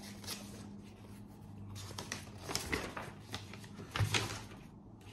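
Paper rustling and crinkling in short irregular bursts as a paper envelope is handled and folded bill sheets are pulled out and opened, with a faint steady low hum underneath.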